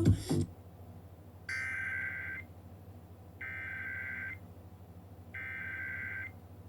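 Emergency Alert System SAME header: three bursts of buzzy two-tone digital data, each about a second long and a second apart, marking the start of an alert. The broadcast's music cuts off just before them.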